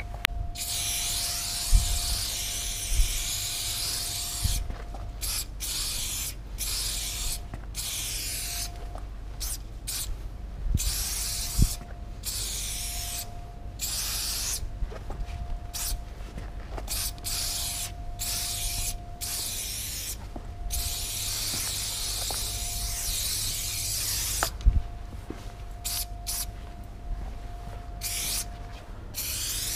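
Aerosol spray paint can hissing in repeated bursts of a second or a few seconds, stopping and starting many times with short breaks, with a few sharp knocks along the way.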